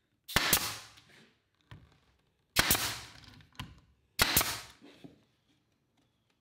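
Brad nailer firing three times, driving nails through wood molding into the bookcase base: each shot is a sharp crack that trails off over about half a second, with lighter knocks between shots.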